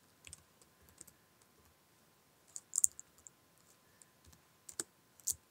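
Slow, faint keystrokes on a computer keyboard, a few irregular key clicks with pauses between them, one of them louder a little before three seconds in.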